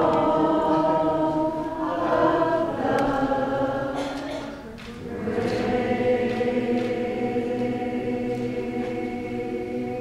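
Choral music: a choir singing long held chords, dipping briefly about halfway through before the voices swell again.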